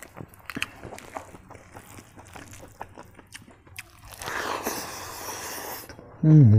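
Close-up chewing with small wet mouth clicks as someone eats rice and omelet curry with their hand. About four seconds in there is a hiss of about two seconds. Near the end comes a loud, short vocal hum that falls in pitch.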